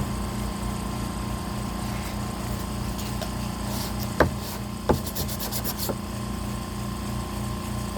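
Sandpaper rubbing back and forth on wood, with a few sharp knocks of the wood or tools against the work surface about halfway through.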